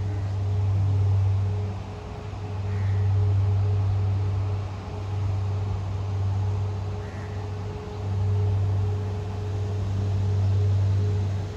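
A loud, low droning hum that swells and fades every two to three seconds, over a fainter steady higher tone.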